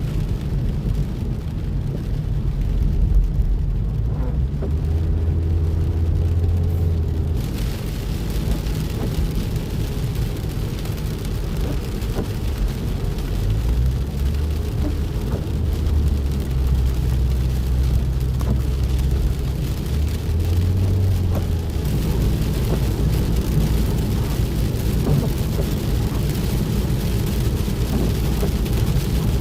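Rain hissing over the steady low rumble and hum of a car; the rain hiss grows stronger about seven seconds in and again a little past twenty seconds.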